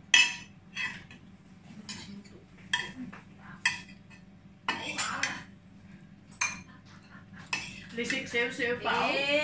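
Serving spoons and cutlery clinking and scraping against ceramic plates and serving dishes as food is dished out, a sharp clink roughly every second with a busier clatter about halfway through.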